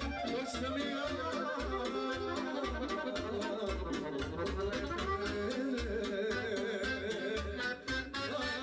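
Amplified Balkan folk band music led by an accordion, with a steady beat and bass.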